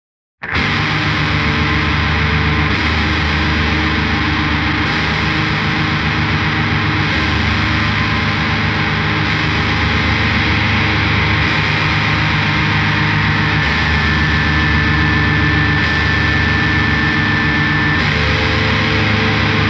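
Layered, heavily distorted electric guitar tracks played through a Haggtronix Harvester, an HM-2-style distortion pedal, into a Two Notes Cab M+ cab simulator. The guitars come in about half a second in and play a continuous riff that shifts about every two seconds.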